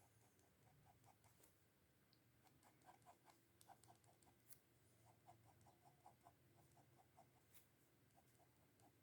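Faint pencil shading on paper: quick back-and-forth strokes in short runs, with a few sharper ticks.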